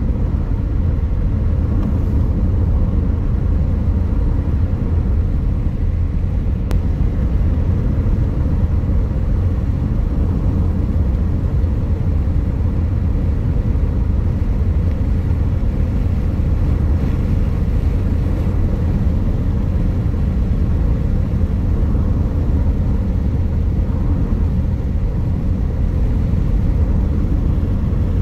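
Car driving at a steady pace: a constant low rumble of engine and road noise that does not change.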